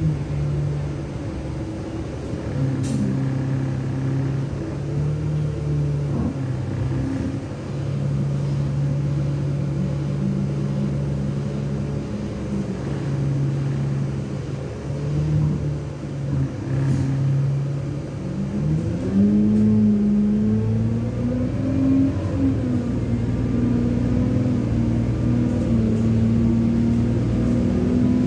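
Alexander Dennis Enviro 200 bus's 6.7-litre diesel engine and Allison automatic gearbox heard from inside the saloon as the bus drives along. The engine note shifts pitch several times, then rises about two-thirds of the way through and holds higher as the bus pulls harder.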